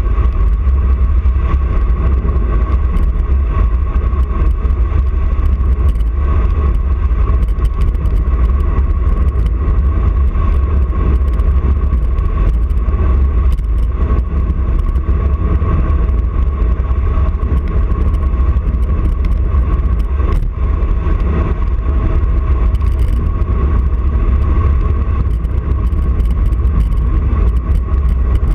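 Wind buffeting a handlebar-mounted camera's microphone on a fast road-bike descent, a loud steady low rumble, with tyre noise on tarmac and a thin steady hum above it.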